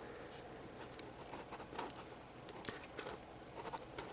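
Faint, scattered light clicks and scrapes of plastic model kit pieces being handled and pushed into a tight-fitting joint.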